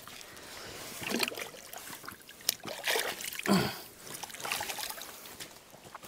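A small creek trickling, with a few short splashes, scuffs and knocks of steps and handling on rock and grass.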